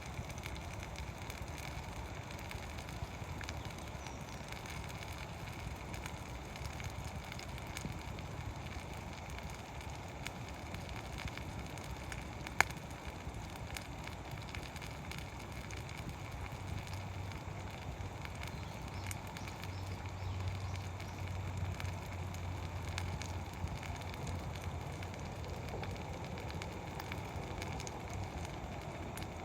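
Wood campfire crackling with scattered small pops over a steady hiss, and one sharp loud pop about twelve seconds in.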